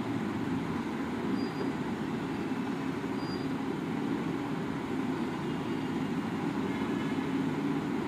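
Steady low rumble of background noise, even throughout.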